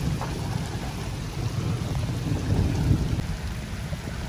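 Heavy rain falling over floodwater under a constant low rumble, with a man's feet splashing as he wades through shallow water.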